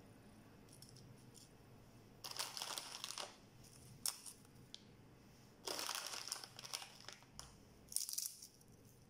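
Lay's potato chips crinkling and crackling as they are handled, broken and pressed onto burger filling, in four short bursts about two, four, six and eight seconds in.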